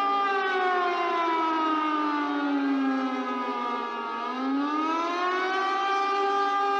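Tsunami warning siren wailing: its steady tone slides slowly down in pitch over about four seconds, then climbs back up and holds steady.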